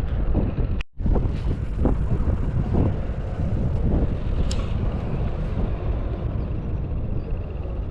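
Wind buffeting the microphone, a steady low rumble with irregular gusts. It cuts out completely for a moment about a second in.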